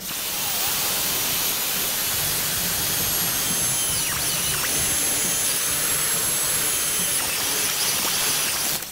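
Power drill running a step drill bit through thin aluminium sheet: a loud, steady cutting noise with a high whine that dips in pitch a few times around the middle.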